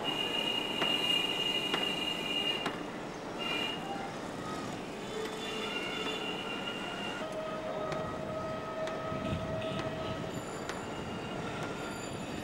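Railway yard sound: a train running, its steel wheels squealing on the rails in long held tones that shift in pitch, over a steady rumble and hiss.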